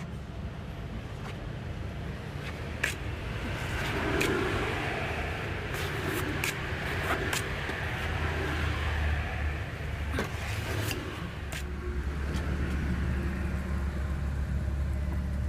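Steady low rumble like a running engine, with a swell of hiss from about four to ten seconds in and scattered sharp clicks.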